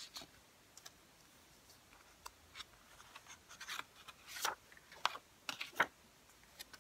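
Paper inserts and a folded booklet being handled and slid out of a plastic CD jewel case: scattered light rustles and small plastic clicks, with a few louder rustles about four and five seconds in.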